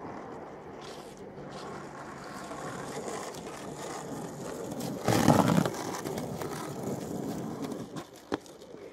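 Skateboard wheels rolling on rough asphalt, a steady rumble that swells loud for about half a second a little past the middle, with one sharp click near the end.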